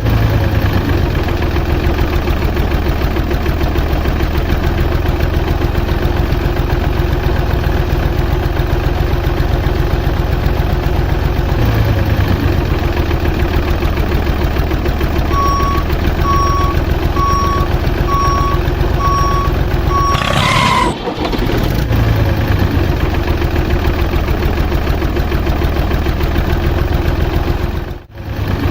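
Steady vehicle engine running, with a series of about six evenly spaced reversing beeps starting about halfway through, then a brief rising sweep. The sound cuts out for a moment near the end.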